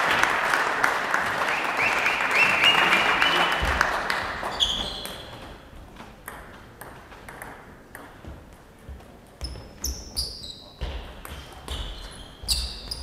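Spectators clapping and calling out for the first four seconds or so after a table tennis point ends, fading away. Then a celluloid table tennis ball ticks on the table and bats in separate sharp pings with a short, high ring, coming more often near the end.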